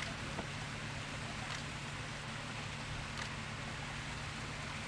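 Steady background hiss with a constant low hum and a few faint ticks.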